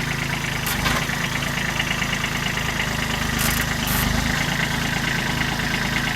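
Farm tractor's engine running steadily at idle, with a few short knocks over it.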